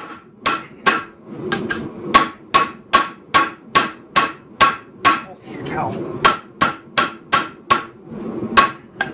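A 5.7 lb forging hammer striking a 52100 steel roller bearing, a steady run of blows about two to three a second, each with a bright metallic ring. The bearing steel is so hard that it barely moves under the blows.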